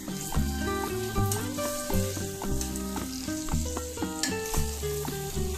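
Vegetables sizzling in a metal kadai as a spatula stirs and scrapes them, with scattered clinks against the pan. Background music with a melody and bass notes plays throughout.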